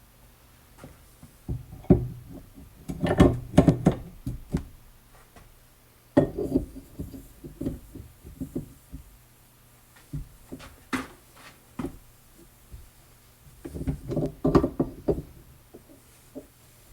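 Irregular metallic clanks and knocks in several clusters, made as a steel alignment tool is fitted onto a seized mower-deck spindle to try to turn it.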